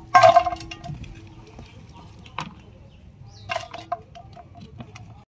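Clanks and knocks of a metal cooking vessel as pieces of goat head are handled for a second rinse. The loudest is a ringing clank about a quarter second in, with a single click a couple of seconds later and a smaller clatter about three and a half seconds in.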